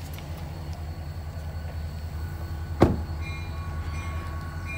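Steady low engine rumble, with a single sharp thump about three seconds in like a vehicle door being shut, followed by short high beeps repeating near the end.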